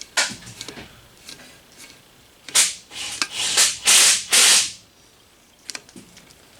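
Metal valve cover being worked off a UTV engine: a click, then four or five hard scraping, rubbing strokes in the middle, and a few light clicks near the end.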